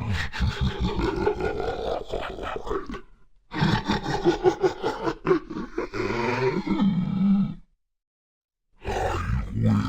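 Deep, pitch-shifted demon voice laughing and growling in three long bursts, with short silences between them.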